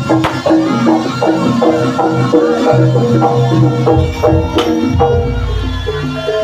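Jaranan accompaniment played on a gamelan ensemble: short metallic notes step through a melody over sustained low gong-like tones, with sharp drum strokes.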